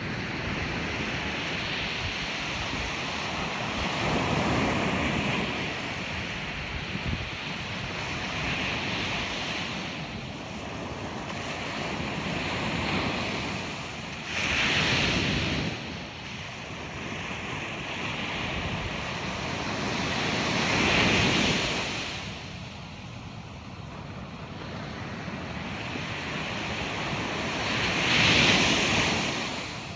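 Ocean waves breaking on a beach: a continuous wash of surf with a louder wave crashing about every six to seven seconds, the loudest near the end. Some wind rumble on the microphone.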